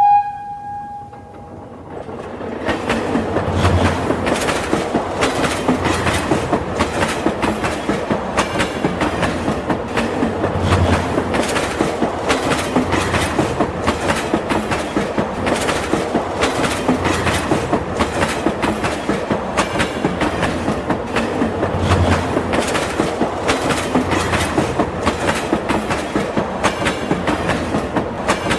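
A toy train running on its track with a steady clickety-clack of the wheels, a few clicks a second, building up over the first two seconds. A short horn toot ends right at the start.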